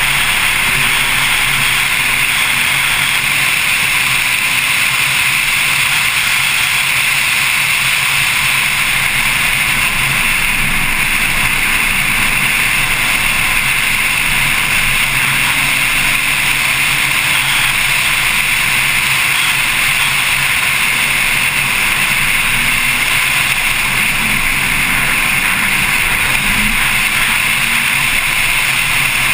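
Porsche 911 Carrera S at track speed: a steady, loud rush of wind and road noise, with the flat-six engine note faintly rising and falling underneath through the corners.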